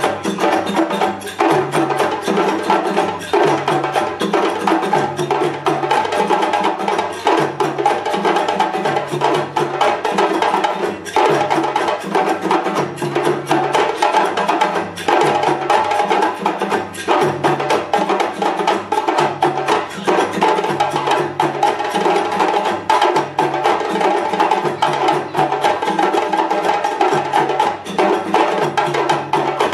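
A djembe ensemble drumming a fast, continuous rhythm of dense hand strikes, with a repeating pattern of low notes underneath.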